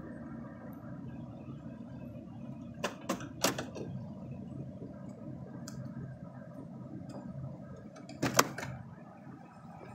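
Steady low rumble with a few sharp knocks or clicks: three quick ones about three seconds in, and a louder pair near the end.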